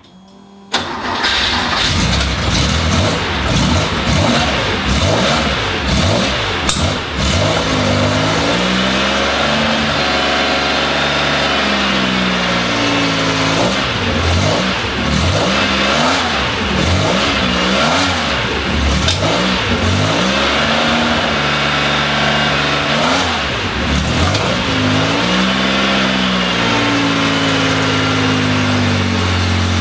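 Porsche 914/6's air-cooled 2.0-litre flat-six (911T engine) catching and starting about a second in, on its first start after years unused. It is then blipped up and down repeatedly with a rough note before settling into a steady idle near the end.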